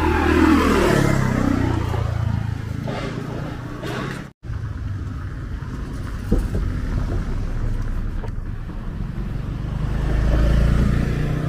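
Street traffic. A motorbike engine passes with its note falling in the first couple of seconds, then a steady traffic rumble follows. The sound breaks off briefly about four seconds in, and a car passes with a low rumble near the end.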